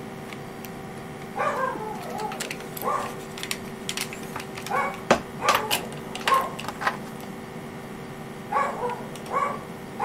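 A pet dog whining in short, high, repeated calls that come in loose clusters. Light clicks and taps of small plastic parts being handled sound between them.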